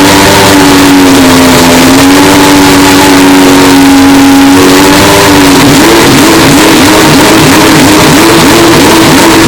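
Historic Group C race car engine, very loud and heavily distorted, held at a steady high note for about five seconds, then switching to a quick repeated rising stutter, about two or three pulses a second.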